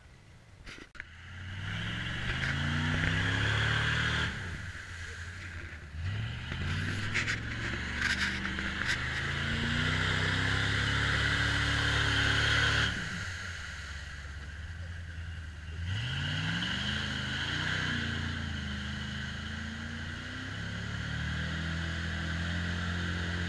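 Jeep Wrangler engine revving hard in three surges, its tyres spinning and slinging mud with a steady hiss as it struggles, bogged down in a deep mud hole. The revs drop back between surges.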